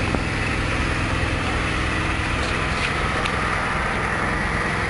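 Small petrol engine running steadily at a constant speed, a low, even hum, with a few faint ticks near the middle.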